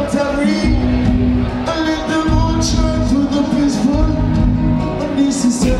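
Live reggae band playing: a male singer's vocals over bass, drums, guitar and keyboard, amplified through a PA.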